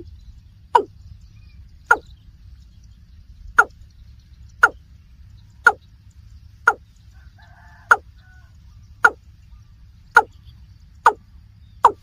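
Watercock calling: a steady series of short, loud notes, each dropping in pitch, about one a second.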